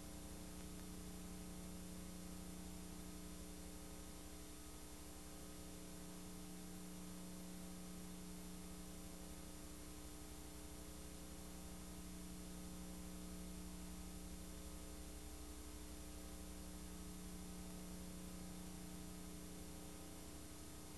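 Steady electrical mains hum over a faint hiss, unchanging throughout.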